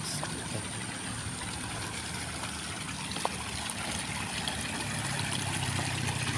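Steady trickle of water running in a concrete irrigation channel beside flooded rice paddies. A low rumble builds near the end.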